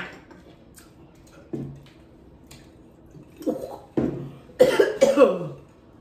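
A woman coughing and clearing her throat after downing a shot of straight liquor, with loud coughs in two bouts near the end. A sharp knock at the very start.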